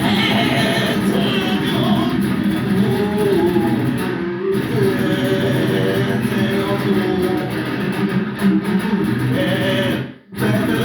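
A band playing a thrash-metal song, with electric guitar and bass guitar. The music breaks off sharply for a moment about ten seconds in, then comes back in.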